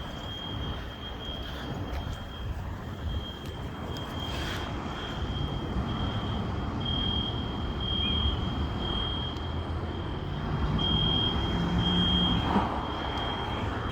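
Building fire alarm sounding a high-pitched beep about once a second, over a steady low background rumble.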